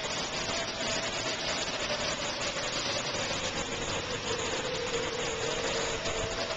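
Heavy rain pouring steadily, with an outdoor storm-warning siren droning underneath, its single tone slowly drifting up and down in pitch.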